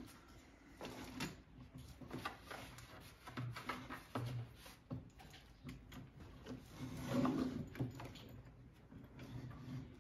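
Scattered light clicks, knocks and rattles of small metal parts being handled: hydraulic fittings and hoses being worked on a top link's locking block.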